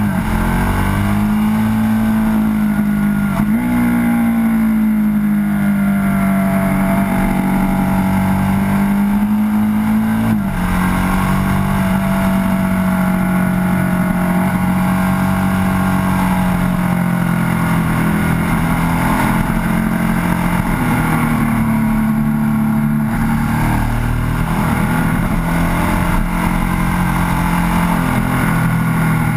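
Ducati 1098S sportbike's L-twin engine heard on board at speed, its note rising and falling through the bends, with a sudden jump in pitch about three seconds in and a sudden drop about ten seconds in as gears change.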